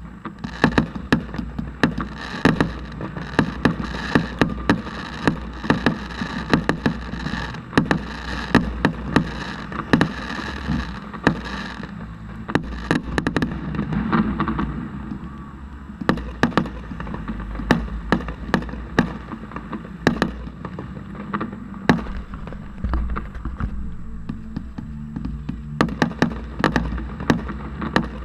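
Fireworks display: a rapid barrage of bangs with dense crackling for about the first twelve seconds, then sparser bangs, thickening again near the end, over a steady low rumble.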